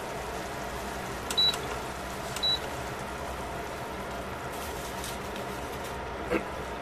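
A pot of vegetables in broth simmering with a steady hiss. About a second in come two short, high electronic beeps a second apart, each just after a click, and there is a single click near the end.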